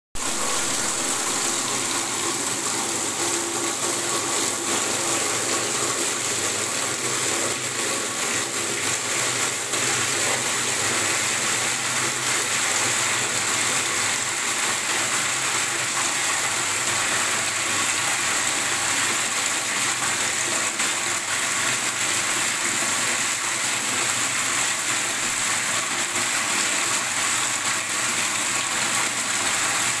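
Tap water gushing in a strong spraying stream into a black plastic bath tub already partly full, splashing steadily into the standing water.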